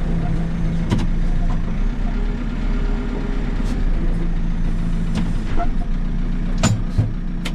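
JCB 3CX backhoe loader's diesel engine running steadily, heard from inside the cab, with a few short sharp clicks or knocks over it.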